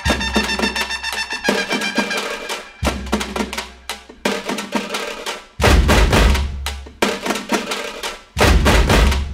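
Background music with a drum beat over pitched instruments; heavy bass hits come in about halfway through and again near the end.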